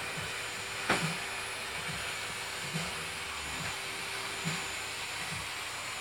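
Vacuum cleaner running with a steady hiss and whine, with one sharp knock about a second in.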